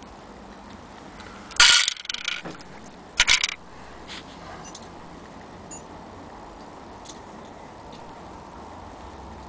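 Two brief clattering rattles of small hard objects being handled, about a second and a half apart, the first longer and louder. A faint steady hiss lies underneath.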